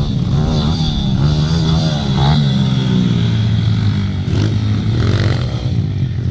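Several pit bike engines running together, revving up and down as the bikes ride around a dirt track, the pitch rising and falling with the throttle.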